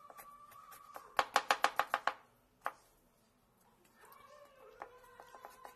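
Kitchen knife chopping cucumber on a plastic chopping board: a quick run of about eight chops about a second in, then a single chop, over background music.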